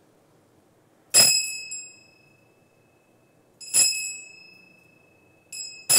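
Altar bell struck at the elevation of the consecrated host: single ringing strikes about a second in and near the four-second mark, then a quick pair near the end, each ringing on with a high, slowly fading tone.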